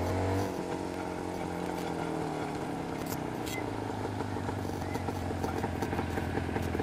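Jawa 350 two-stroke twin motorcycle engine running as it is ridden. The pitch falls over the first couple of seconds, then settles into a steady drone.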